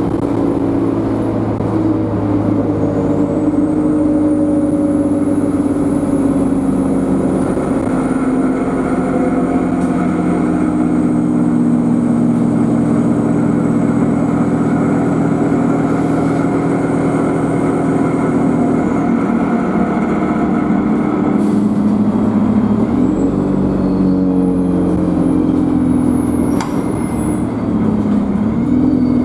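Alexander Dennis Enviro200 bus's diesel engine running under way, with a thin, high turbo whine that rises a few seconds in and slowly falls away by the middle. The engine note shifts in pitch again near the end.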